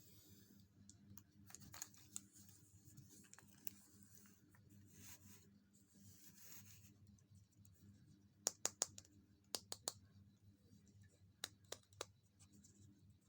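Close-up handling of small plastic toy pieces: faint scratching and rustling, then three quick clusters of sharp plastic clicks in the second half.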